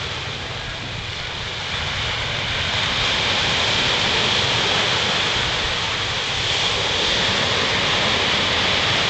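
Ocean waves washing onto the beach as a steady rushing surf, swelling about two seconds in, over a low rumble.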